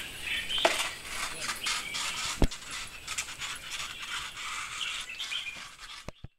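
Bull terrier panting and snuffling as it noses and pushes an old rubber tyre across concrete, with scraping and clicking throughout and one sharp knock about two and a half seconds in. The sound cuts off suddenly near the end.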